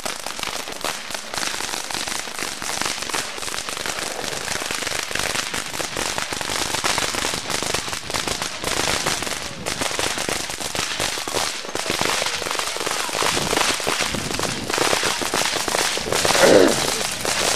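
Fireworks crackling and popping without a break, a dense rapid crackle of many small reports. Near the end a short high voice cuts in briefly.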